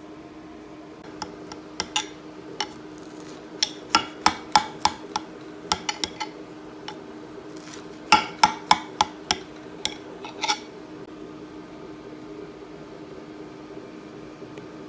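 A knife and spatula clinking and scraping against a glass loaf dish while a baked egg loaf is cut and a slice lifted out: a string of sharp clinks in two clusters, over a steady low hum.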